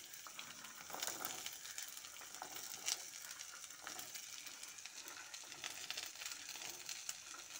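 Garlic cloves frying in hot oil with green chillies and ginger in a metal pan, giving a steady sizzle. A spatula stirs them, with short scrapes and knocks against the pan now and then, the sharpest about a second and three seconds in.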